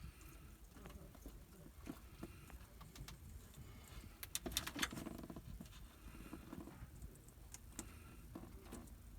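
Faint clicks and rustling of hands working on vehicle wiring, with a short cluster of sharper clicks about four and a half seconds in.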